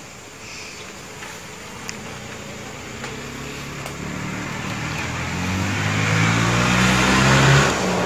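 A motor vehicle's engine drawing closer, getting steadily louder for several seconds with a low engine hum and rushing road noise. It is loudest about seven and a half seconds in, then falls off sharply.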